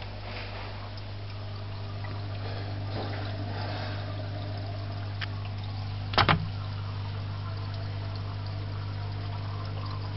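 Water running and splashing in an aquarium sump over a steady low hum. A sharp double knock about six seconds in.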